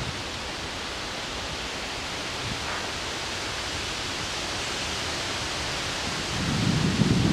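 Steady rushing hiss of wind through the trees, with wind buffeting the microphone as a low rumble rising near the end.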